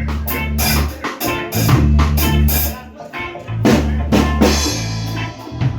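Live band playing at a soundcheck: a drum kit beating out a groove of kick, snare and rim hits over sustained low bass notes.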